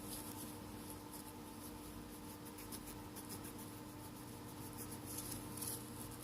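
Faint, irregular scratchy rustling of small parts being handled during a phone repair, a little louder near the end, over a steady electrical hum.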